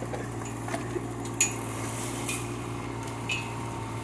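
Kubota K008 mini excavator's small diesel engine running steadily while its bucket works a bush's root ball, with about three sharp metallic clinks, the loudest about a second and a half in.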